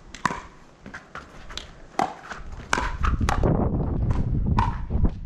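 Pickleball paddles striking a hard plastic pickleball in a rally: sharp hollow pops roughly a second apart, with shoes scuffing and ticking on the plastic court tiles. A loud low rumble comes in about two and a half seconds in.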